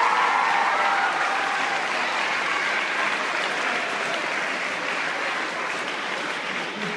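Crowd in a gym applauding, a dense wash of clapping that slowly fades.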